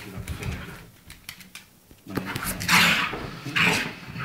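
A Staffordshire bull terrier scrambling about in frantic play, with small scuffling knocks. Two loud, short, breathy huffs come close together about three seconds in.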